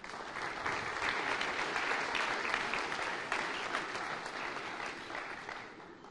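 Audience applauding: many hands clapping that starts at once, holds steady, and fades out over the last second or so.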